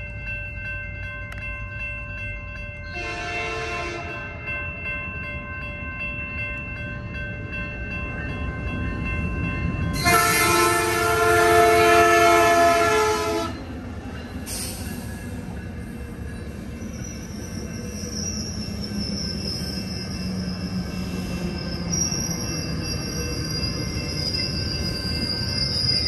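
Metrolink MP36PH-3C commuter train sounding its horn, a short blast about three seconds in and a longer, louder blast about ten seconds in, over the steady ringing of grade-crossing bells. The train then rumbles through the crossing, and a high steady squeal from the wheels sets in about halfway through as it runs into the station.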